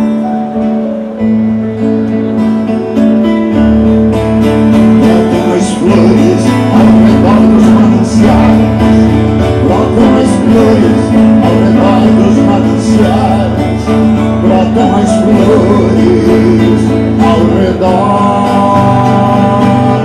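Live acoustic folk music: a nylon-string classical guitar strummed and picked over a steady bass line, in an instrumental passage between verses of a sung song.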